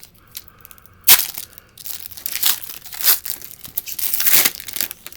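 A trading card pack's wrapper being torn open and crinkled: a sharp rip about a second in, then several shorter crinkling rustles as the wrapper is pulled apart.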